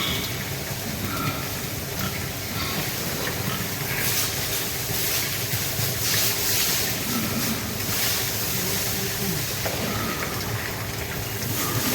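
Water spraying steadily from a hose or pressure sprayer washing down a pig pen, surging louder a few times, over a steady low hum.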